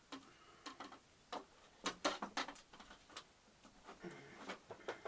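Irregular light clicks and ticks, about a dozen spread unevenly, from tools and small plastic and metal parts being handled while a flat-screen TV is taken apart.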